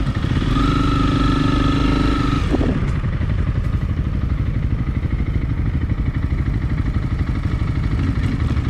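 Honda CRF300L's single-cylinder engine running at low revs as the bike creeps slowly across grass. About half a second in, a steady whine sounds over it for about two seconds, then drops away.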